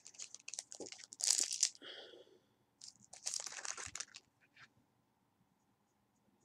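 Scratchy rustling and clicking from makeup items being handled close to the microphone, loudest in two spells about a second and three seconds in, dying away after about four and a half seconds.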